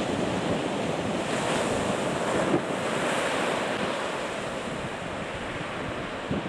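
Ocean surf breaking and washing up a sandy beach, swelling to a louder wash about two seconds in, with wind noise on the microphone.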